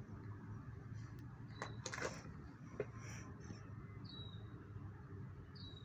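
Faint outdoor background with a steady low hum and a few soft clicks, and two short high bird chirps, about four and five and a half seconds in.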